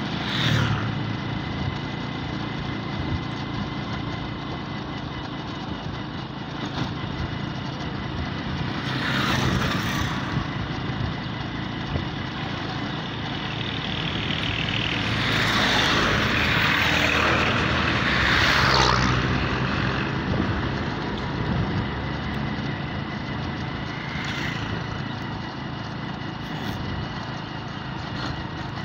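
Vehicle engine running steadily while driving along a road, with louder rushes of noise briefly about nine seconds in and again for several seconds in the middle.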